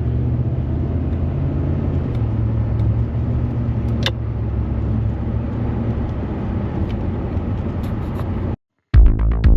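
A car's engine and road noise while driving, heard from inside the cabin as a steady low rumble, with a single sharp click about four seconds in. The sound cuts out near the end and electronic music with a pulsing beat starts.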